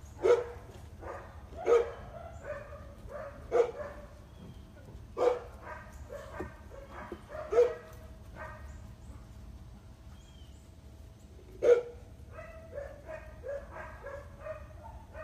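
A dog barking: about six loud, sharp barks spaced a second or more apart, with quicker, quieter yips in between, more of them near the end.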